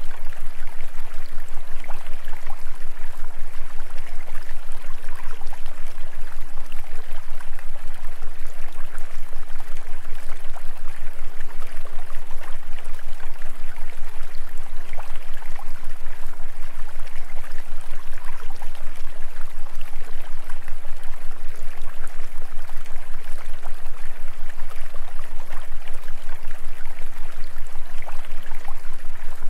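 Steady rushing noise like running water, over a strong low steady hum. The sound pulses rapidly and evenly throughout, with faint wavering low tones beneath.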